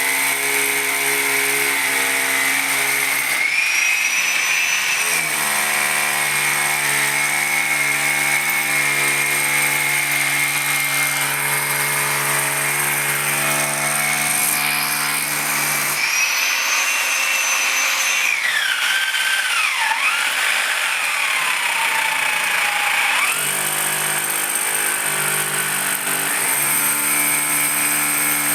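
Electric drill running continuously as it bores a hole into a concrete lintel beam for rebar, a steady machine hum. For several seconds past the middle the low hum drops away and a whine slides down in pitch and back up.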